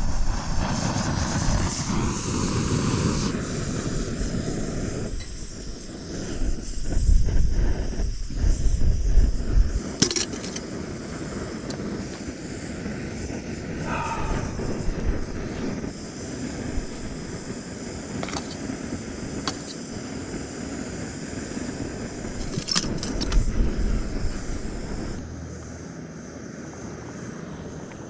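Backpacking canister stove burning steadily under a pot of water, a continuous hissing rush, heating water for coffee. A few sharp clicks break in over it.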